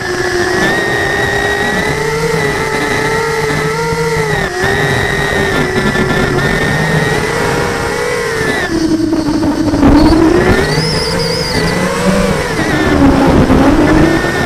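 Multirotor drone's electric motors and DAL 6045 tri-blade propellers whining steadily, heard from the onboard camera. The pitch falls and rises as the throttle changes, dipping lowest about nine seconds in and again near the end.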